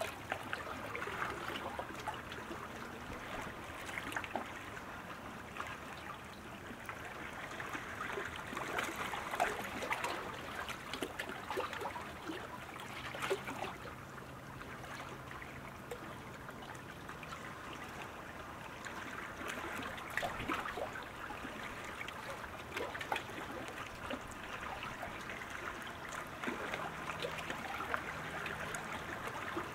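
Lake water lapping and splashing against racing kayaks and paddle blades: a steady watery hiss with scattered small splashes and drips.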